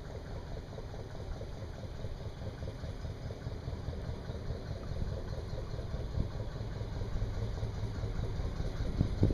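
Narrowboat engine running at a slow, steady pace with a low, pulsing beat, growing louder as the boat passes close by.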